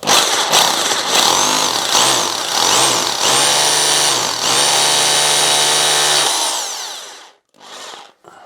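Electric drill boring a hole into a wall for a wall plug. The motor speeds up and slows down a few times, runs steadily at high speed for about three seconds, then winds down near the end.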